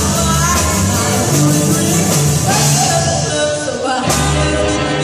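Rock and roll song with a singer, over a steady bass line and beat.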